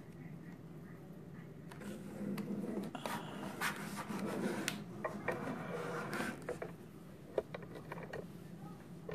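Small handling sounds of miniature siding pieces being fitted and pressed onto a dollhouse wall: scattered light clicks, taps and rubbing, busiest through the middle.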